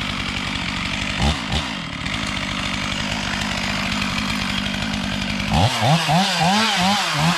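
Two-stroke chainsaw running at a steady idle with two quick throttle blips, then revved up and down repeatedly in fast rising-and-falling swells from about five and a half seconds in.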